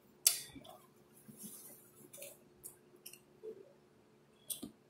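Close-up chewing and wet mouth sounds of a person eating oxtail: sticky smacks and lip clicks, with a sharp click just after the start and another near the end.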